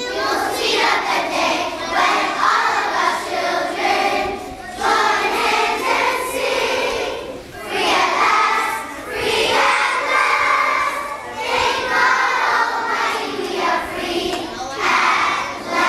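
A group of children singing together, in phrases of a few seconds with short breaks between them.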